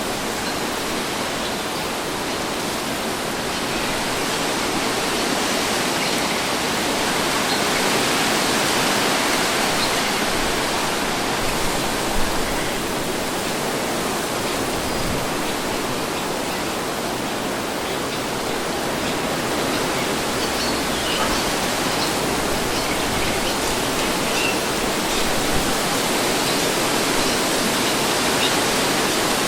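Steady wind blowing through open air as a constant rushing hiss that slowly swells and eases like gentle gusts, with a brief faint click about twelve seconds in.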